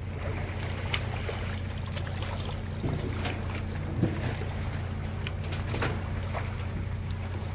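A watercraft engine idling: a steady low hum, with light water lapping and a few small knocks.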